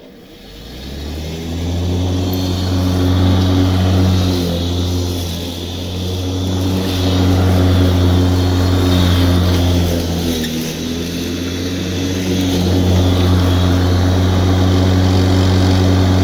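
Home-converted electric rotary lawnmower running while cutting grass: a brushless outrunner motor turning a home-made steel blade through a toothed belt. It spins up over the first second or two to a steady pitched hum, sags briefly about ten seconds in, and starts to wind down at the very end.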